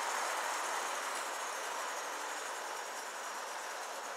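Gauge 1 live steam model train, locomotive and coaches, running along the garden track: a steady rushing rail noise that slowly fades as the train draws away.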